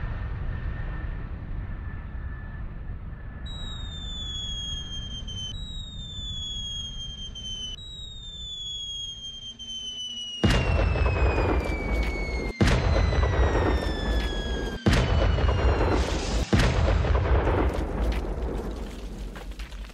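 Wartime air-raid sound effect: a low rumble, then falling-bomb whistles, several descending whistles from a few seconds in. From about halfway through comes a string of heavy bomb explosions, four sharp blasts in close succession, the loudest part, dying away near the end.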